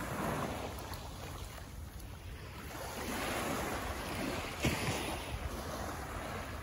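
Small waves lapping and washing up on a sandy beach, swelling a little past the middle, over a steady rumble of wind on the microphone, with one brief knock about two-thirds of the way through.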